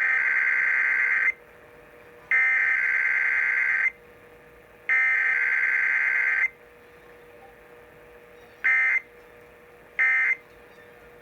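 Emergency Alert System digital data tones broadcast over the radio: three harsh two-tone bursts of SAME header data, each about a second and a half long, with about a second between them. Then two short end-of-message bursts come near the end.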